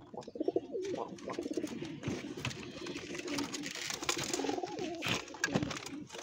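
Domestic pigeons cooing repeatedly in a wooden nest box, with quick rustles and knocks of wings and feet as the birds shift and scuffle.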